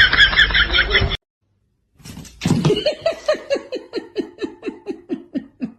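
A person laughing in a long run of quick 'ha' pulses that falls steadily in pitch. It follows a short burst of high, rapid chattering that cuts off about a second in.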